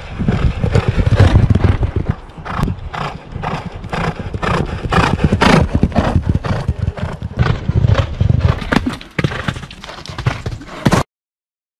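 Racehorses galloping on an all-weather gallop: a fast, uneven run of hoofbeats that cuts off suddenly near the end.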